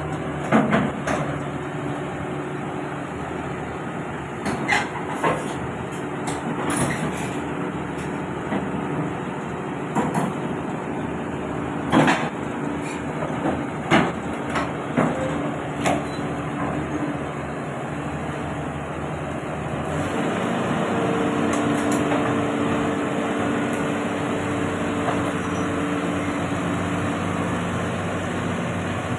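Heavy diesel machinery running steadily, with sharp metallic clanks every few seconds. About two-thirds of the way through, the engine note changes and rises, as if the engine is speeding up under load.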